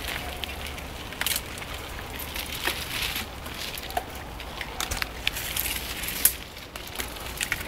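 Mountain bike tyres crunching over dry leaves, twigs and dirt as a file of riders passes close by, with many irregular crackles and snaps.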